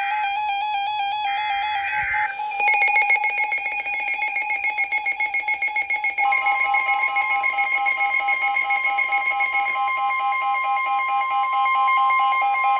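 NOAA Weather Radio SAME header data bursts for a severe thunderstorm warning: the header's digital burst ends about two seconds in. Then many weather radios set off their alert beeps together in a pulsing chorus, and from about six seconds in the broadcast's steady warning alarm tone sounds over them.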